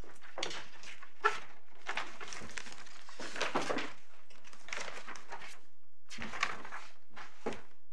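Sheets of paper rustling and pages being turned in several short bursts, with a light knock a little over a second in.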